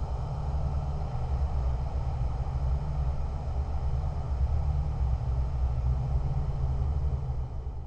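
Designed 'whisper drone' dark ambient atmosphere: a steady low drone under a soft hissing haze, beginning to fade out near the end.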